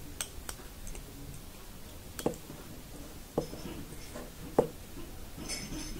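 Sparse, irregular small clicks and taps of a plastic loom hook and rubber loom bands against the metal tines of two forks as the bands are hooked and lifted over them, about five clicks in all.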